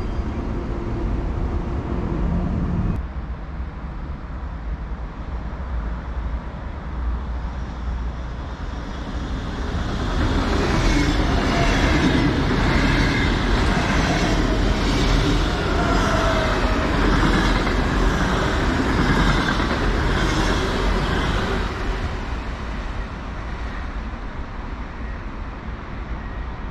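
NS double-deck electric intercity train passing close at speed: a steady rumble and hiss with a regular clatter of wheels over the rail joints, growing louder about ten seconds in and easing off near the end. It is preceded by a few seconds of an approaching NS Flirt sprinter, cut off abruptly about three seconds in.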